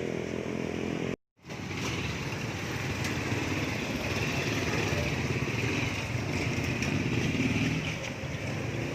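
Street traffic with a motorcycle engine running close by. The sound cuts out completely for a moment about a second in, then steady traffic noise with engine rumble carries on.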